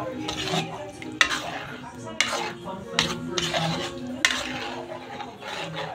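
Metal spatula stirring coconut milk in a metal pan, scraping the bottom and knocking against the pan's side about four times.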